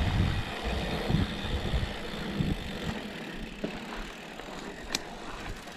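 Mountain bike rolling along a dirt trail: tyre and drivetrain rattle with wind rumbling on the microphone, easing after about two seconds as the bike slows, with one sharp click about five seconds in.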